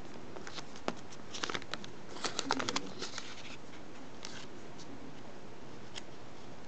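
Origami paper crinkling and rustling as it is creased and pressed flat by fingertips. The crackles come in a dense cluster about two to three seconds in, with a few single ticks later.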